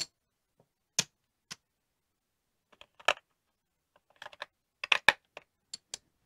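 Casino chips clicking against each other as they are picked out of a rack and set down and stacked on a felt craps layout: a dozen or so short, sharp clicks at irregular moments, with a quick cluster about five seconds in.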